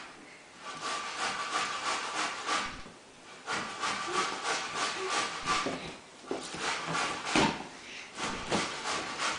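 Rapid scratching and rubbing strokes, about five a second, in three runs of two to three seconds each, from a Samoyed puppy scrabbling at a sofa and a wooden floor while a child scrambles on the sofa.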